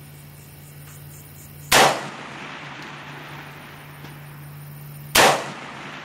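Two rifle shots from an AR-15, about three and a half seconds apart, each a sharp crack with a short fading tail.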